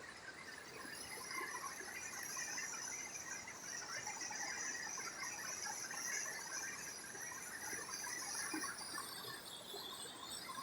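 Steady, high-pitched chorus of insects, with an even rush of flowing floodwater beneath it.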